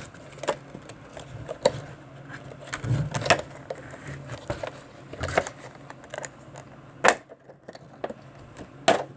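A box being opened by hand: irregular crinkles, taps and sharp clicks of packaging being pulled and worked, with the loudest snaps a few seconds apart.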